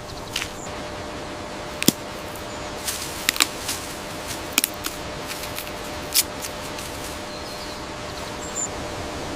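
Giant panda snapping and chewing bamboo: irregular sharp cracks and crunches over a steady background hiss.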